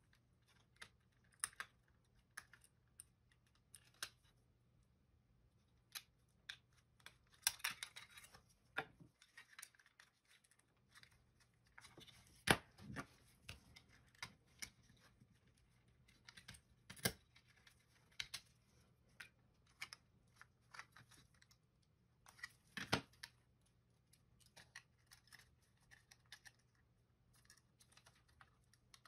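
Small irregular clicks and snaps of plastic parts being pried apart with tweezers and handled, as a Microsoft IntelliMouse Optical is taken apart. A few louder snaps stand out, the loudest about halfway through.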